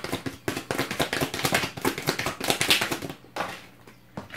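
A tarot deck shuffled by hand: a quick run of card flicks and taps for about three seconds, then a card laid down on the table with a single tap near the end.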